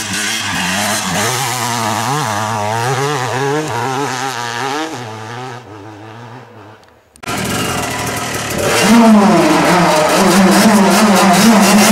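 Two-stroke dirt bike engine revving up and down as it is ridden. About seven seconds in there is a brief cut to silence. Then a second bike run comes in louder, with the engine held at high revs.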